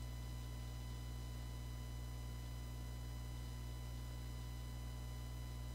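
Faint steady electrical hum with a few thin, high steady tones over a light hiss; nothing else sounds.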